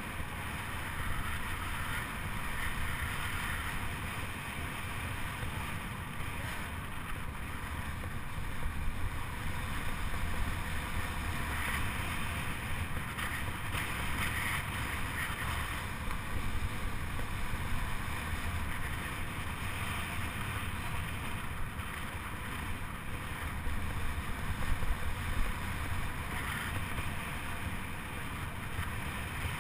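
Steady wind rush over a microphone riding along on a track bike, with a low rumble underneath and the level wavering.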